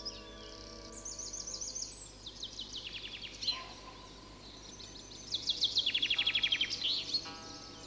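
Songbirds singing: quick falling trills of repeated short notes, the loudest and fastest run about five to seven seconds in.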